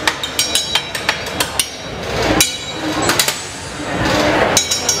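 Steel glassblowing hand tools knocking and clinking together, a series of sharp metallic strikes, some leaving a short high ring.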